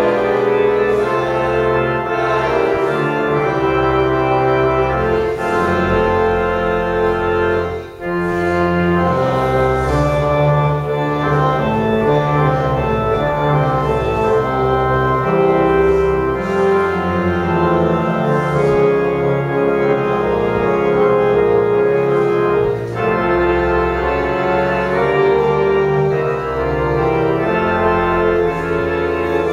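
Church organ playing slow, held chords that change every second or so, with a brief break about eight seconds in.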